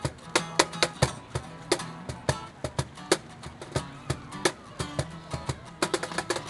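Acoustic guitar strummed with a cajon played alongside, sharp percussive hits coming several times a second over the held guitar notes.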